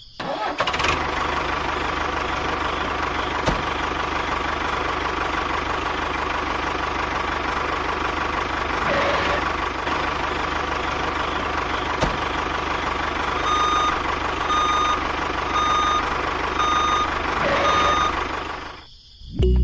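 Toy truck running with a steady motor whir; in the second half its reversing alarm beeps five times, about one beep a second.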